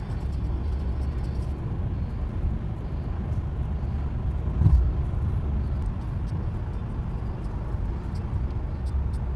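Steady low rumble of a car driving at road speed, heard from inside the cabin, with a brief louder swell about halfway through.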